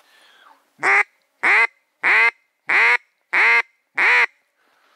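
Six loud, evenly spaced mallard hen-type quacks, each short, about two-thirds of a second apart, in a steady series used to call ducks in.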